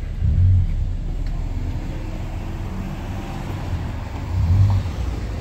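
Street traffic: cars, including a minivan, driving past with a steady low rumble. The rumble swells louder twice, about half a second in and near the end.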